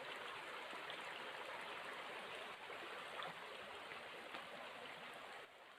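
Steady rush of flowing water from a forest stream, faint and even, dropping away suddenly near the end.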